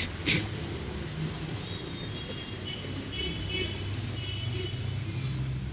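Street traffic with a steady low engine hum from passing vehicles. Two short sharp clicks come right at the start.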